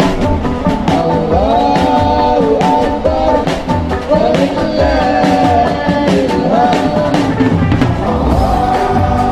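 Live band playing a religious song: a voice singing a gliding melody over a drum kit with steady beats.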